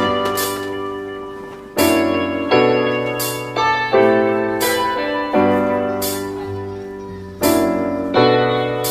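Background music: piano chords struck every second or two, each ringing and slowly fading.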